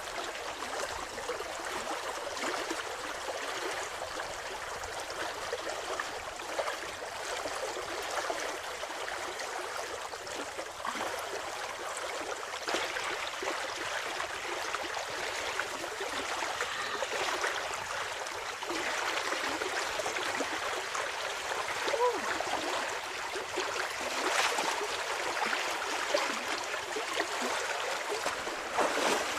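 Shallow river water flowing and burbling steadily, with splashes of a person wading and reaching into the water by hand, louder in the second half.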